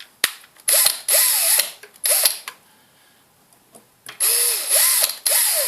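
Cordless drill-driver with a small metal bit running in three short bursts, its motor whine rising and falling in pitch with each squeeze of the trigger. It is drilling a hole through the sealed hub cap of a laptop cooling fan to reach the bearing for oiling.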